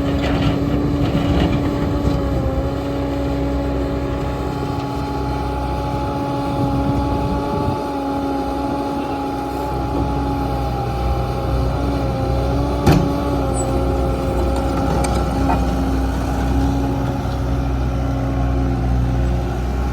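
Bobcat T770 loader's diesel engine running steadily, with a steady whine over the rumble. A single sharp click comes about two-thirds of the way through.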